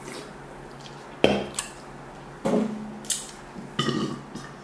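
Dishes and takeout food containers being handled on a table: a handful of sudden knocks and clinks spread over a few seconds, some with a brief ring after them.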